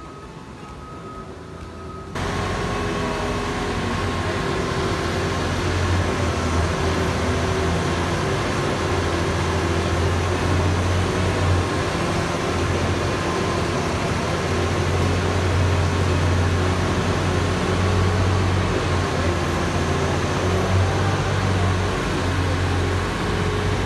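Heavy machinery running steadily: a Doppstadt Inventhor Type 6 slow-speed shredder working through textile waste while a material handler's grab feeds it. A strong low hum sits under dense mechanical noise. The sound cuts in abruptly about two seconds in, after a quieter start.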